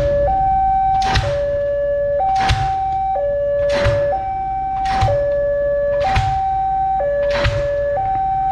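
Railway level-crossing warning alarm sounding: two electronic tones alternating, each held about a second, with a sharp ringing strike about once a second.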